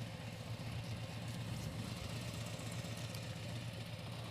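Harley-Davidson Road Glide's V-twin engine idling steadily, a low even rumble.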